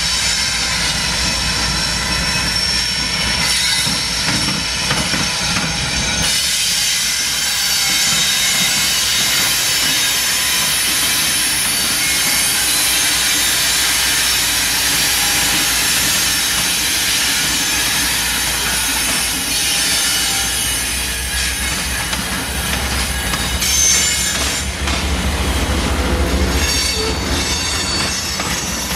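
Freight cars of a CSX freight train rolling past, their steel wheels squealing in several high tones while they clatter over the rail diamond crossing.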